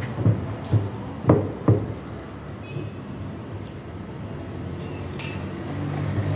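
Sharp knocks and metallic clinks of tools and metal parts being handled during washing-machine reassembly: five knocks in the first two seconds, then lighter clicks and a brief clink about five seconds in.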